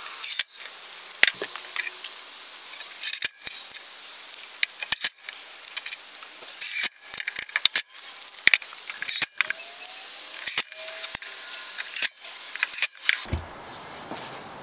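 Screws being fastened into a plywood box with a DeWalt cordless drill/driver: short, irregular bursts of sharp metallic clicks and rattling.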